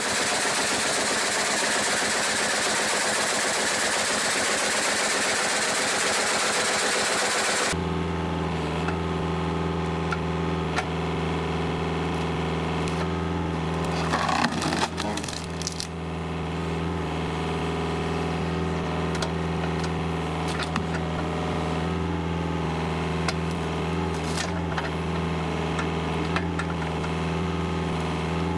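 Heavy logging machinery at work: about eight seconds of dense, hissing machine noise, then an abrupt change to an engine running steadily. Over the engine, wood cracks, splinters and scrapes, with a louder burst of cracking about halfway through.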